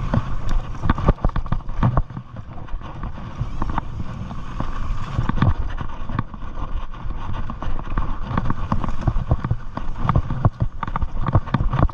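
Mountain bike rolling fast down a rocky dirt trail: tyres crunching over stones and roots, with frequent sharp knocks and rattles from the frame and drivetrain as it hits bumps, over a constant rumble of wind on the microphone.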